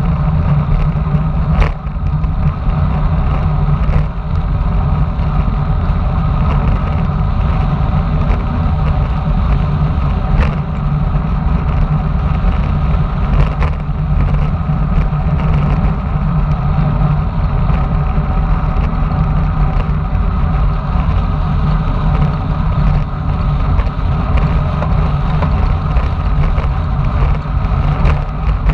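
Wind buffeting the microphone of a camera on a road bike descending at speed, mixed with tyre and road noise: a steady, loud low rumble with a few sharp knocks.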